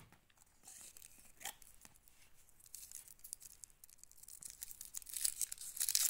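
Foil wrapper of a tablet being torn and peeled open by hand: a run of small, high crackles of tearing foil, thickening and growing louder toward the end.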